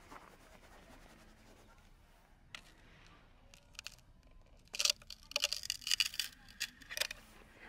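Yellow plastic snow-duck maker (snowball tongs) scooping and squeezing packed snow on a post: a quick run of crisp crunches and scrapes in the second half, after a quieter start with a few faint clicks.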